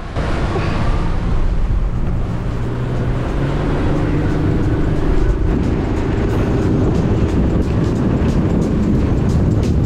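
Motor of a 6.5-metre rigid inflatable boat running under way: a steady drone, with the rush of wind and water over it.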